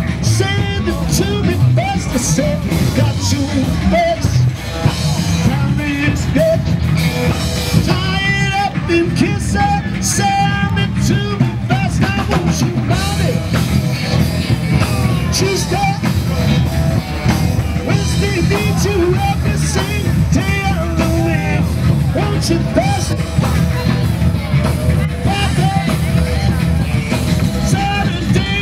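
Rock music with a singer and drum kit playing continuously.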